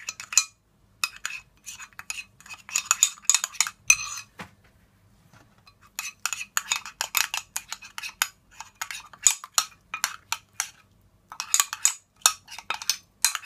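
Metal spoon stirring a thick barbecue-sauce mixture in a ceramic bowl, scraping and clinking against the bowl in quick runs, with a pause of about a second and a half about four seconds in.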